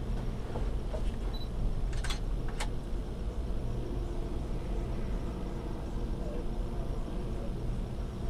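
Steady low rumble and hum inside a gondola cable car cabin riding along its cable, with two light clicks about two seconds in.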